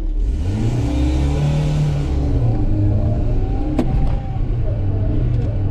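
Ford Escort Mk3's 1.1-litre Valencia OHV four-cylinder engine accelerating hard, heard from inside the cabin, its note rising in the first second or so and then holding loud and steady. A single sharp knock comes about four seconds in.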